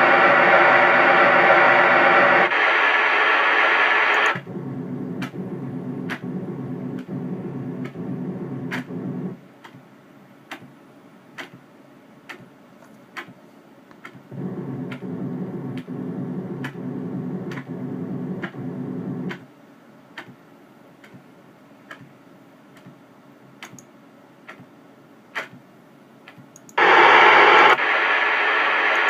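A faulty computer sound card puts out an electronic buzz and static. The noise comes and goes in blocks of several seconds, starting and stopping abruptly and changing level between blocks. In the quieter gaps there are scattered sharp clicks.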